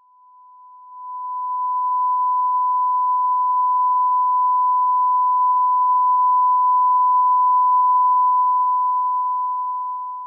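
A single pure, steady electronic tone, held at one pitch. It swells in over the first second or two and fades away at the end.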